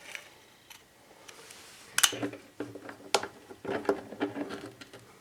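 Handling noise of a spring hose clamp and rubber fuel line being worked onto a small fuel shutoff valve: two sharp clicks about a second apart, with rubbing and squeaking of the hose between and after them.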